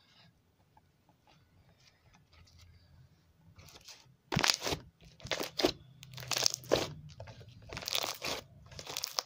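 Slime being squeezed and worked in the hands, giving crunchy crackles. The crackles are faint at first, then from about four seconds in come loud, in quick bunches every half second or so.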